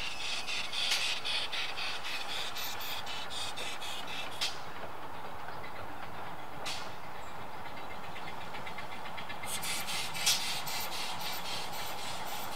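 12¼-inch gauge Exmoor-built miniature steam locomotive and its passenger train running at a distance: a steady running noise with a fast, even clicking that stops about four seconds in and comes back near the end.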